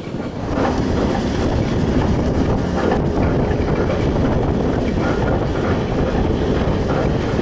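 Heritage electric tram running along the track: a steady rumble of the wheels on the rails with some clatter, and a faint whine around the middle.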